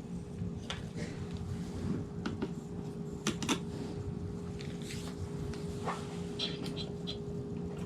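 Scattered light clicks and knocks of handling, two sharp ones close together about three and a half seconds in, over a steady low hum.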